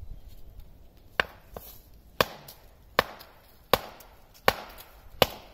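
A length of wood used as a mallet striking the chamfered top of a wooden stake six times at a steady pace, about one hard blow every three-quarters of a second, driving it into the ground. The chamfer keeps the stake from splitting under the blows.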